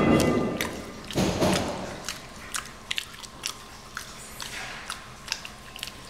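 A chimpanzee chewing a burrito, with many short wet smacks and clicks of the mouth scattered throughout. Two louder dull low bumps come in the first second and a half.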